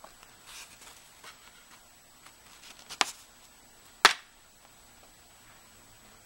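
A folded paper airplane being handled: faint paper rustles, then two sharp clicks about a second apart, the second one the loudest.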